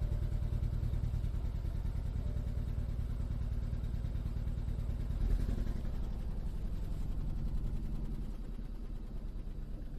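BMW N20 2.0-litre turbocharged four-cylinder engine idling roughly, with a brief swell about five seconds in. It is misfiring on cylinder 4, which the mechanic traces to a fuel injector leaking in the open position.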